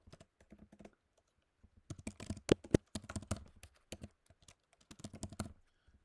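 Typing on a computer keyboard: quick runs of keystrokes broken by short pauses, with a couple of sharper, louder key presses about two and a half seconds in.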